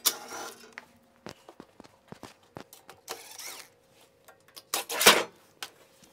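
Handling noises on a metal battery cabinet: scattered clicks and knocks, with short loud scraping clatters at the start and about five seconds in.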